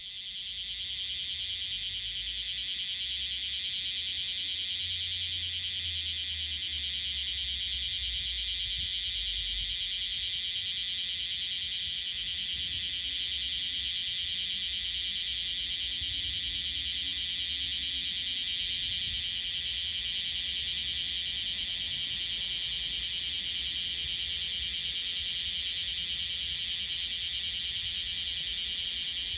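A bear cicada (Cryptotympana facialis) male singing, a loud, continuous rapid buzzing that runs without a break. The uploader judges the song a little clumsy and not yet settled, taking it for a male only just emerged.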